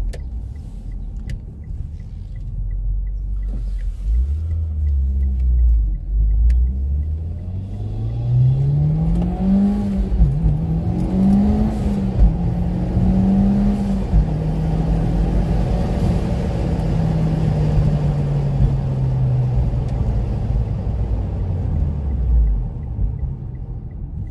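Mitsubishi Lancer Evolution X's turbocharged 2.0-litre four-cylinder, running on the factory ECU map, accelerating hard: its note climbs steeply, dips twice at quick gear changes, then holds and slowly falls away as the car eases off, dropping near the end.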